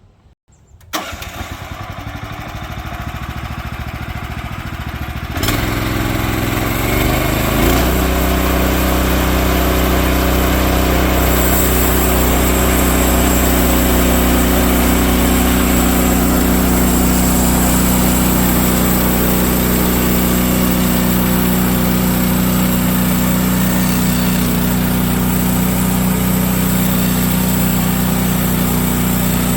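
A Woodland Mills HM130 MAX bandsaw mill's gas engine starts about a second in and runs at idle. A few seconds later it is throttled up with a rising pitch to a steady full-speed run, driving the band blade. A high hiss joins at about eleven seconds as the blade runs.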